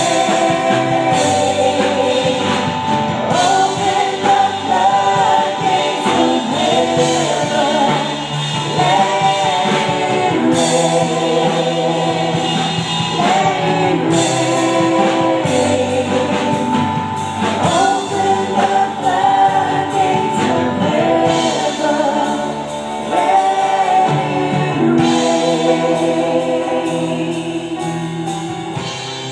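Live gospel music: a group of women singing together into microphones over a band backing with drums.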